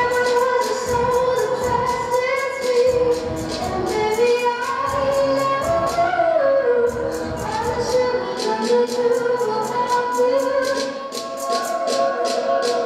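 Backing music for a dance routine: a song with long held sung notes over a steady, quick beat.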